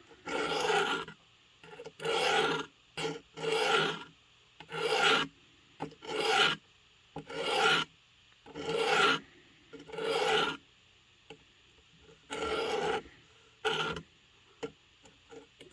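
A knife blade being sharpened: about ten rasping strokes drawn across a sharpener, each lasting a little under a second, with a short pause about two-thirds of the way through.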